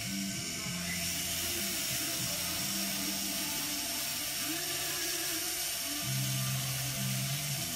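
Jeweller's rotary handpiece spinning a small polishing brush against a silver pendant, a steady high-speed whine, to bring the silver to a shine.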